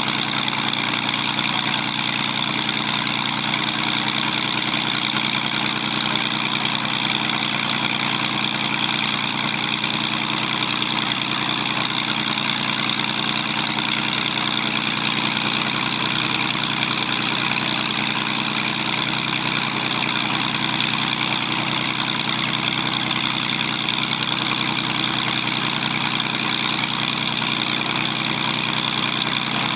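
Zlín Z-526F's Walter M137 inverted six-cylinder engine idling steadily on the ground with the propeller turning, in its pre-take-off engine check. The engine note holds even throughout, with no run-up.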